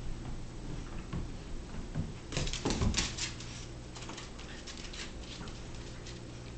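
Two puppies, a Doberman pinscher and a small scotchipoo, playing on a hardwood floor: their claws click and scrabble on the boards in a rapid flurry from about two seconds in, with a louder scuffle and thump near the start of it.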